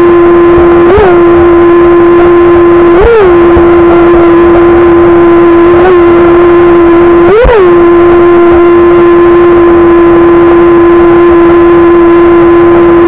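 Small electric RC jet boat's brushless outrunner motor and 20 mm jet drive whining at a steady high pitch, with four brief upward jumps in pitch, over the rush of water along the hull.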